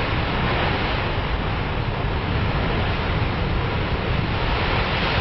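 Steady rushing roar of a burning oil well blowout, with wind buffeting the microphone.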